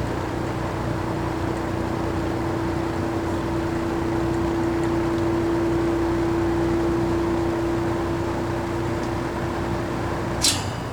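McGraw Edison Eskimo 20-inch box fan running on low speed: a steady motor hum over a rush of moving air. The owner judges the motor to need oil, as it struggled to get up to speed on low. About ten and a half seconds in, a click comes as the fan is switched off; the hum stops and the blades begin to wind down.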